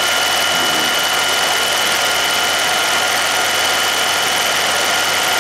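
Film projector running: a steady mechanical whir with a constant high whine over an even hiss.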